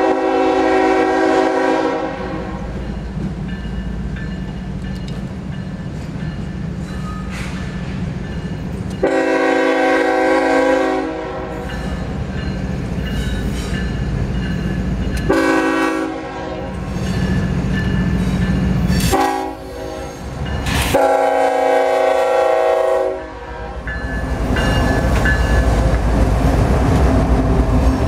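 A Norfolk Southern freight locomotive's air horn sounds five times: two long blasts, two short ones, then a final long blast. Between blasts the diesel locomotives rumble as they work slowly under load. The rumble swells near the end as the locomotives pass, with wheels clattering over the rails.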